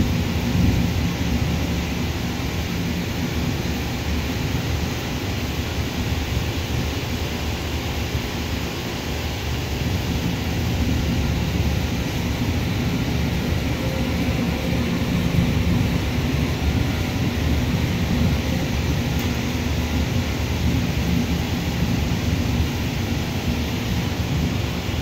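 Steady low rumble of jet aircraft engines across the airfield, mixed with wind buffeting the microphone, swelling slightly about halfway through.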